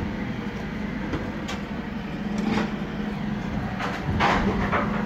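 A Dennis refuse collection lorry running with a steady hum, with several clattering bangs as wheelie bins are handled and emptied. The loudest clatter comes about four seconds in.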